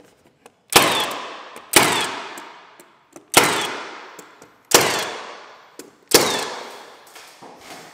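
15-gauge finish nailer firing five times, about one shot every second or so, each a sharp crack with a short ringing tail, as nails are driven through a wooden beam into the ceiling. Faint clicks sound between the shots.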